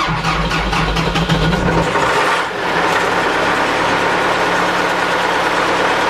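MTZ-82 tractor's four-cylinder diesel engine starting up and running, first start of the day. It settles into a steady idle after about two and a half seconds, heard from inside the cab.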